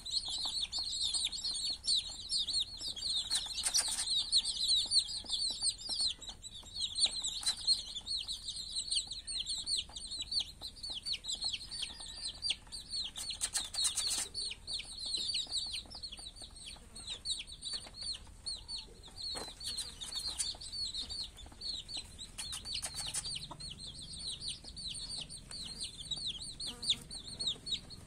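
A flock of young chicks peeping constantly, many short high falling peeps overlapping, busiest in the first half and thinning later. A few brief taps and rustles are mixed in.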